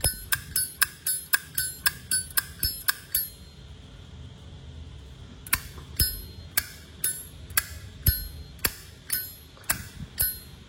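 Zippo lighter lid being flicked open and snapped shut over and over, sharp metallic clicks with a ringing edge. The clicks come fast, several a second, for about three seconds, then stop. After a pause they resume at about two a second. The clean, crisp action is the sign of a sturdy hinge.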